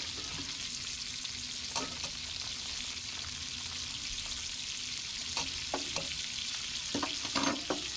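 Food sizzling steadily in a frying pan, with a few light clicks and knocks of a utensil against the pan.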